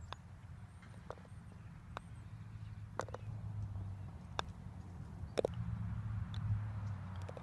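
Sharp clicks of a putter striking golf balls, about one a second, with a low rumble underneath.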